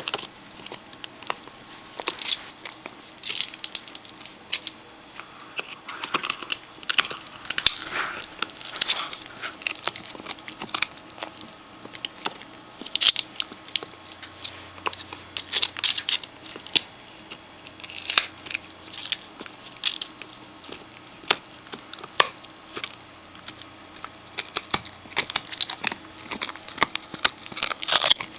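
Shetland Sheepdog puppy chewing a large rawhide bone: irregular crackling, crunching and tearing of the hide between its teeth, coming in quick runs of clicks with short pauses between.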